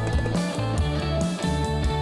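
Background rock music with guitar over a steady bass line.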